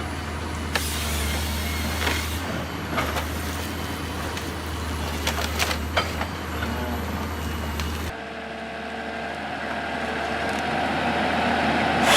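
A heavy machine's engine running steadily, with several sharp knocks and clanks; about eight seconds in the sound cuts abruptly to another machine noise that grows louder toward the end.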